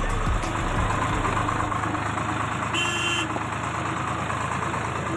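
Tractor's diesel engine running steadily, heard from aboard the moving tractor. A brief high tone sounds about three seconds in.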